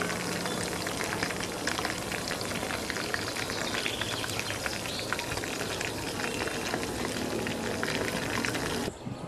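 Battered chicken wings deep-frying in hot oil: a steady, dense sizzle full of small pops and crackles. It cuts off abruptly just before the end.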